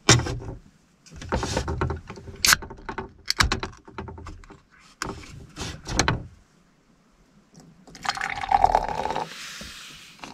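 Suntory Nama beer can handled on a metal table top with several sharp taps and knocks. About eight seconds in it is cracked open, and beer then starts pouring into a glass, fizzing near the end.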